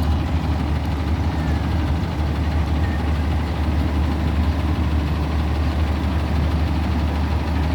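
A fire engine's heavy engine idling steadily, a deep, even low rumble with no siren.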